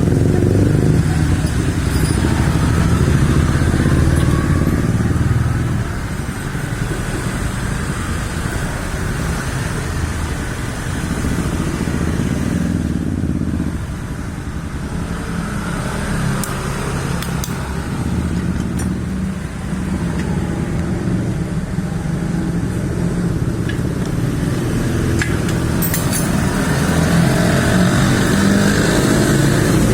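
Motorcycle engines running, with steady engine noise that shifts in pitch. It is louder near the start, eases after about six seconds and swells again near the end.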